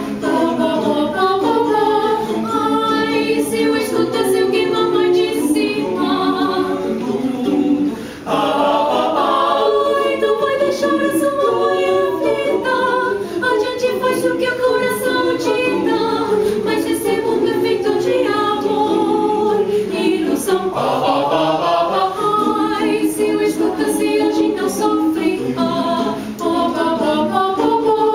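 Mixed choir of about a dozen men's and women's voices singing a cappella in close harmony, with one short pause for breath about eight seconds in.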